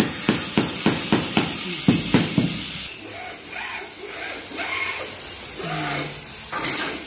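Rubber mallet knocking on a large ceramic floor tile to bed it level in its mortar, a quick run of knocks about four a second that stops about three seconds in. A short hiss comes near the end.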